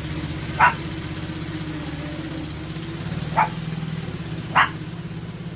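A small dog barking three times in short, sharp barks, over a steady motor drone.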